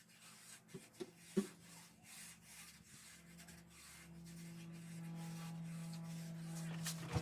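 Repeated rough scraping strokes of a hand tool spreading gravel paver base. A steady low hum comes in and grows louder from about four seconds in.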